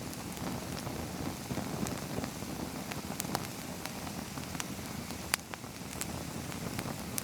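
Small campfire crackling: a steady hiss with scattered sharp pops and snaps.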